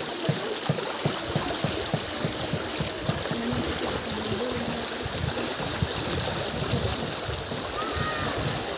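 Shallow, fast-flowing stream rushing and gurgling over rocks and stones, a steady babble of water.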